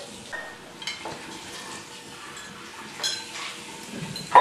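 Metal fork clinking and scraping against a ceramic bowl and plates during a meal: a few light clinks over a steady hiss, with a brief louder sound at the very end.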